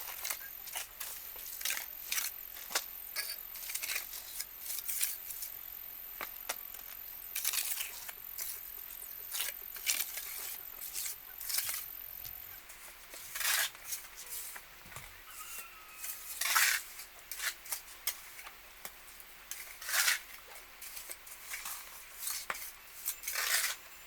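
Irregular light clicks and clinks of small hard objects being handled, now sparse, now several close together.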